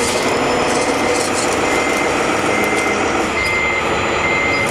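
Reversing beeper of a radio-controlled truck, sounding four evenly spaced high beeps about a second apart from partway in, over a steady mechanical din.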